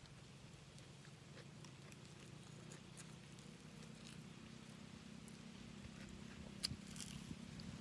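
Quiet eating sounds: grilled meat being pulled apart by hand and chewed, heard as small scattered clicks, with a sharper one near the end, over a faint low steady hum.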